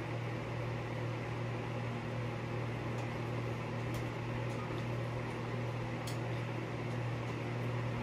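A steady mechanical hum with a strong low tone fills the room, with a few faint clicks as the ceiling fan's blade screws are worked loose.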